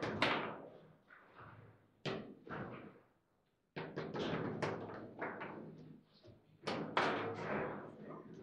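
Table football (foosball) in play: quick, sharp knocks of the ball and rods against the players' figures and the table's walls, with a short pause about three seconds in.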